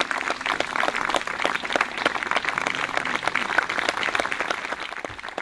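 Crowd of guests applauding, the rapid clapping thinning out near the end.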